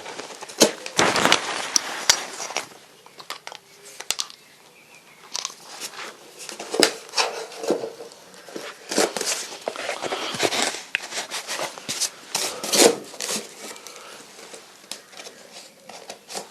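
A cardboard template being handled and fitted against steel: irregular rustling and scraping with many sharp clicks and light knocks.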